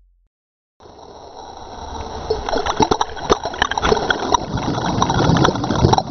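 Churning water and bubbles heard underwater, with many small knocks and splashes. It begins after nearly a second of silence and grows steadily louder.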